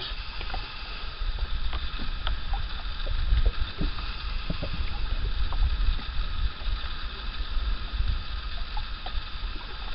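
Lake water lapping and sloshing around a small fishing boat, under an uneven low rumble of wind on the microphone, with a few light clicks and taps of handling.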